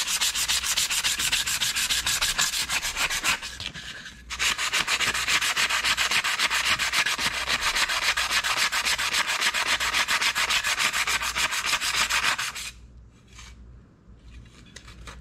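Rusty steel rod of a VW Beetle emergency brake lever being hand-sanded with abrasive paper to take off surface rust, in fast, even back-and-forth strokes. The scraping breaks off briefly about four seconds in and stops near the end, with one more short stroke after.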